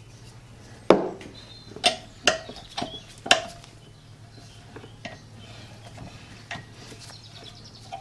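Steel spanner clinking against a track rod end and its lock nut held in a bench vise: about five sharp metallic clinks in the first few seconds, then a few fainter taps. Under them runs a faint steady low hum.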